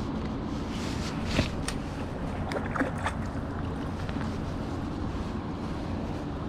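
Steady wind and water noise, with a few short clicks and ticks about one and a half to three seconds in.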